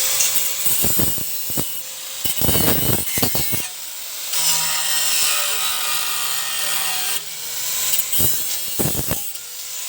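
An old Bosch angle grinder cuts a large circle in the metal wall of an old fireplace. It makes a loud steady hiss over the thin whine of the motor, and eases off and bites again several times as the disc works along the cut.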